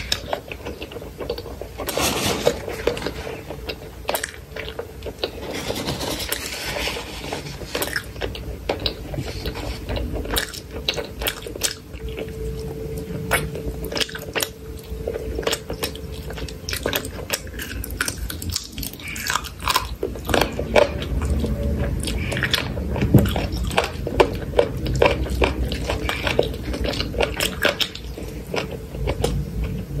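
Close-miked eating sounds: chewing and biting into curried chicken leg and rice eaten by hand, with many quick wet mouth clicks throughout.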